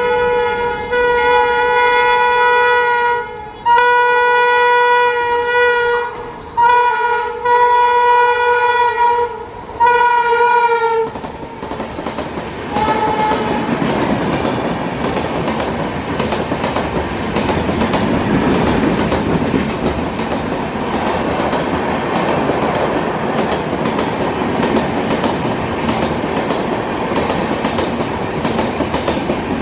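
Horn of an Indian Railways WAP7 electric locomotive honking in four long blasts with short breaks, then a brief toot, sounded to scare people off the track. The express then passes at speed, a loud steady rush of wheels on rail.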